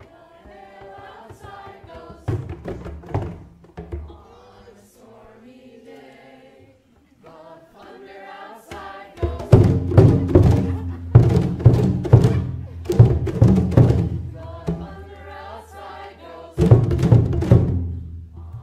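A group of voices singing or chanting together with hand drums. About nine seconds in, the drums are beaten hard in a loud stretch over a low held note; they ease off for a couple of seconds, then come back loud near the end.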